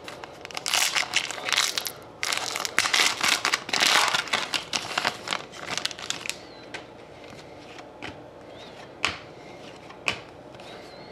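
Foil wrapper of an Upper Deck Trilogy hockey card pack being torn open and crumpled: a run of crinkling for about five seconds. A couple of short taps follow as the cards are handled.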